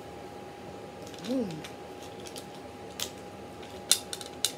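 A short hummed 'mm' rising and falling in pitch about a second in, then a handful of sharp clicks and snaps as hands work at something small, the loudest just under four seconds in.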